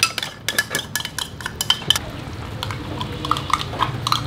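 Metal spoon clinking and scraping against a bowl and frying pan as an egg mixture is scraped out into the pan: a quick run of sharp clinks in the first two seconds, then softer, sparser clatter.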